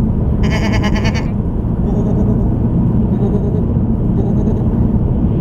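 Steady low road and engine rumble inside a moving car. About half a second in comes a short, high pitched bleat-like vocal sound from a person in the car.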